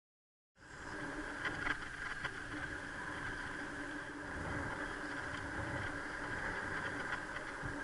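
Ride noise of a bicycle rolling along a paved park path, picked up by a camera mounted on the bike or rider: a steady rush of tyre and wind noise that starts abruptly about half a second in, with a few short rattles between one and two seconds in.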